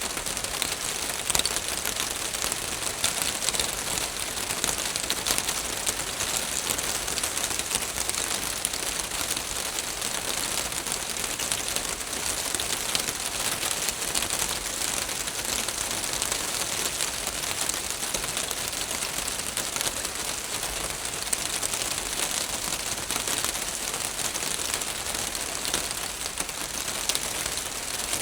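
Steady rain falling on a roof, a dense even patter of many fine drop ticks.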